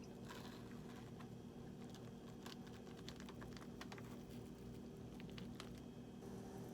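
Faint, irregular light clicks and taps, a few each second, over a steady low hum.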